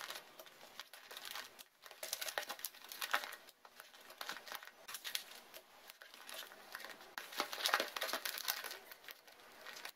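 Sheet of white paper rustling and crinkling as it is wrapped and folded around a cardboard box by hand, in irregular bursts of rustle, louder about two seconds in and again near the end.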